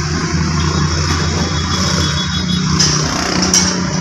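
Hyundai Getz engine idling steadily, heard from inside the cabin, with a couple of light clicks near the end.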